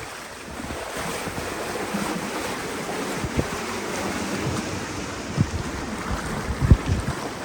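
Open canal tour boat under way: the wash of water around the hull with wind on the microphone, and a few short low thumps from gusts in the second half.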